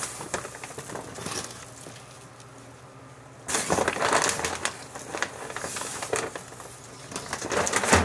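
Loose potting substrate being scooped and handled by hand, crackling and rustling as it crumbles. It dips quieter about two seconds in and picks up again from about three and a half seconds.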